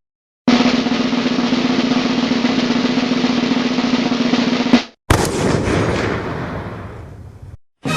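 Snare drum roll sound effect: a steady roll of about four seconds, then a single closing crash that rings and fades away over about two and a half seconds.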